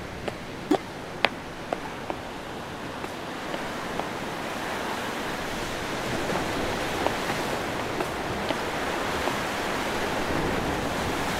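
Sea surf washing on a rocky shore: a steady rushing that slowly grows louder. A few sharp clicks sound in the first couple of seconds.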